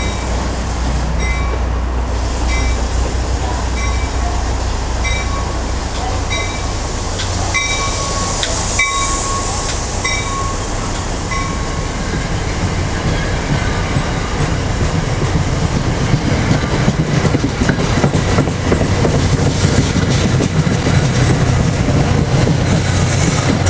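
Departing diesel push-pull passenger train pushed by an F40PH-2CAT locomotive: a steady low engine drone, with a bell ringing about every two-thirds of a second for roughly the first ten seconds. The engine then grows louder, with wheel clicks on the rails, as the train gathers speed.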